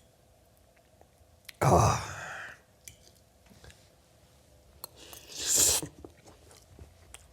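A person eating a bowl of instant ramen noodles: two loud slurps, about a second and a half in and about five seconds in, with soft chewing clicks between.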